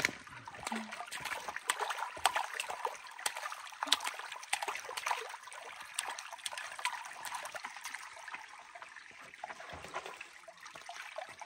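Shallow creek trickling over rocks, with small splashes from a toddler's feet and hands slapping and paddling in the water.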